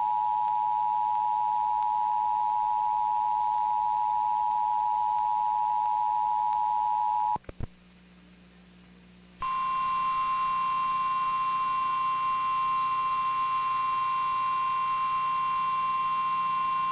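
Two-tone Emergency Alert System attention signal held steady for about seven seconds. It cuts off, and after about two seconds of near-quiet the single steady NOAA Weather Radio warning alarm tone sounds. These are alert tones that come before a flash flood warning.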